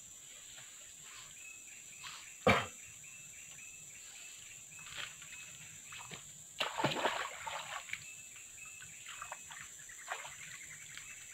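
Water splashing as a hooked softshell turtle is hauled in on a hand line at the stream's edge: one sharp smack about two and a half seconds in, then a longer spell of splashing and sloshing around seven seconds in, with smaller splashes between.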